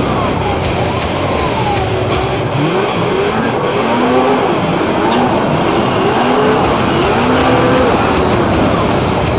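Snowmobile engine running under changing throttle, its pitch rising and falling about once a second over a steady rough noise.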